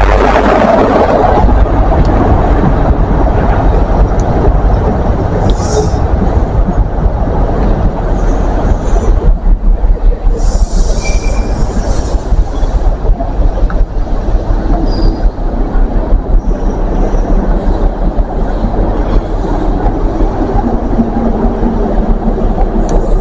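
A CrossCountry HST moves past at close range. The Class 43 diesel power car's engine is heard briefly at the start, then the coaches roll by with a continuous rumble of wheels on rail. There are brief high wheel squeals about six and eleven seconds in.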